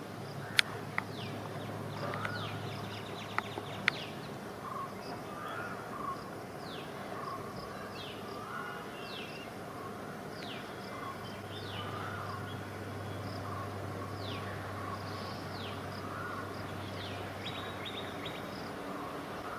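Birds calling: many short falling whistles and a lower call that recurs every second or two, over a faint low hum, with a few sharp clicks in the first four seconds.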